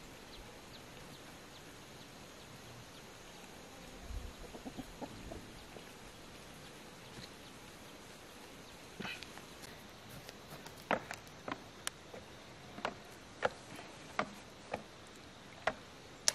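Chickens clucking: a string of short, sharp clucks, now and then through the second half, over a quiet rural background.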